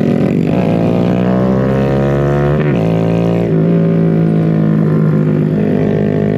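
Honda Grom's small single-cylinder engine pulling under acceleration. Its pitch climbs, drops sharply at an upshift about two and a half seconds in, then climbs again.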